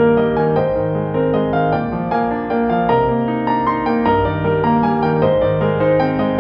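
Instrumental background music led by piano or electric piano, with a bass line and notes changing at a steady pace.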